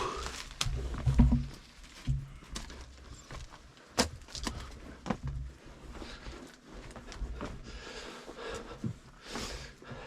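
Scrapes, knocks and clothing rustle of a person squeezing feet first through a tight lava-tube passage, with irregular sharp clicks of hands, gear and body against the rock and heavier rumbling contact about a second in.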